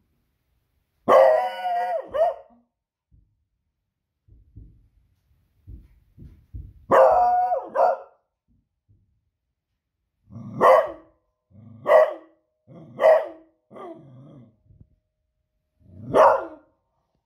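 A beagle barking in alarm at fireworks noise: two drawn-out, wavering calls of about a second each, then a run of five short barks.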